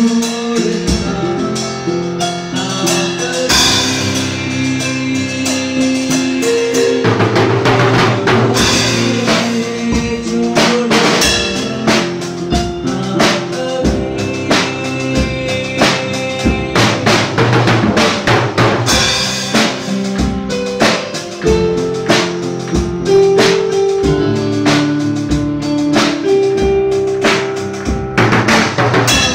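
Instrumental passage: an electronic keyboard plays the melody and chords over a steady drum-kit beat, with no singing. The drumming gets fuller about seven seconds in.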